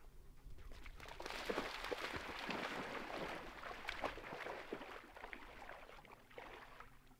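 Water splashing and sloshing at a lake's edge: a close run of small splashes starting about a second in and dying down after four seconds or so.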